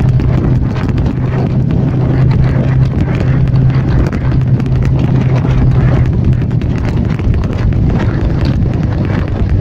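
Vespa scooter engine running steadily at cruising speed, with a constant low drone and wind on the microphone.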